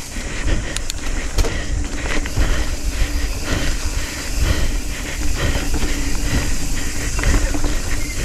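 Nukeproof Scout 275 hardtail mountain bike riding fast down a dirt forest trail. A steady rush of wind and tyre noise with a heavy low rumble, and sharp rattles and clicks from the bike over bumps.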